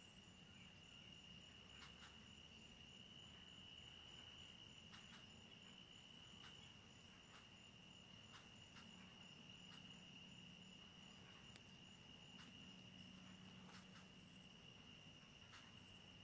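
Faint chorus of insects, crickets or similar: one steady high trill, with short chirps breaking in about every second or so.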